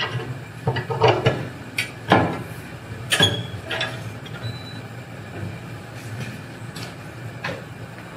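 Metal ammo-can toolbox clanking as it is pushed down and seated in its mounting holder, with clicks from its latch being worked. There is a handful of sharp knocks over the first few seconds, the loudest about two and three seconds in, then only faint handling.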